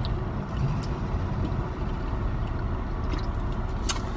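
Steady low rumble of vehicles, heard from inside a car cabin, with a sharp click near the end.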